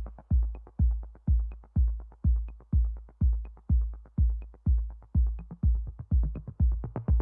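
Electronic dance music: a steady four-on-the-floor kick drum about twice a second with light hi-hat ticks between the beats.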